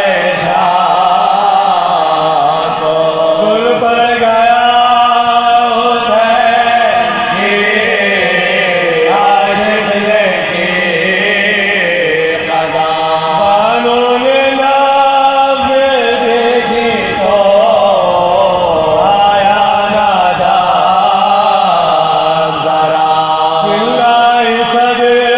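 Soz recitation: male voices chanting an unaccompanied lament in long, wavering, held melodic lines.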